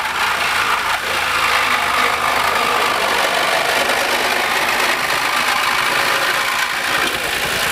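Corded reciprocating saw with a Lenox blade cutting through a car's sheet-metal body and floor, running steadily at full speed.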